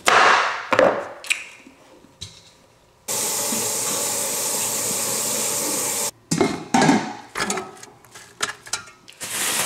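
Kitchen tap running for about three seconds, switched on and off abruptly, with pots and dishes clattering and knocking before and after.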